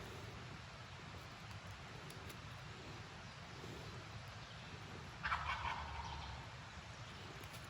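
A wild turkey gobbler gobbles once about five seconds in: a single rattling call lasting about a second, over a faint steady background.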